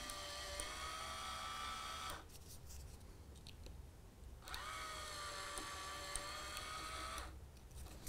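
MTB MP10 point motor, a small geared electric motor, running with a thin, faint whine for about two seconds as it throws the point, stopping, then running again for nearly three seconds about halfway through, driven the other way.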